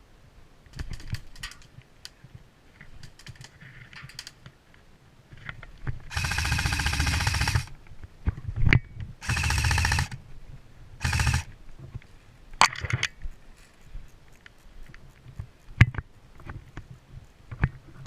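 Airsoft electric gun firing full-auto bursts: a long burst of about a second and a half, a second of about one second, and a short half-second burst, each a rapid buzzing rattle of shots. Scattered single sharp pops and clicks come before and after.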